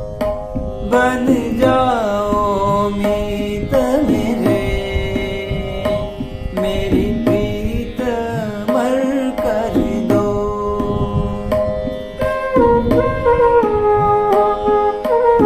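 Flute playing a gliding melodic interlude over steady accompanying tones, with hand-drum beats.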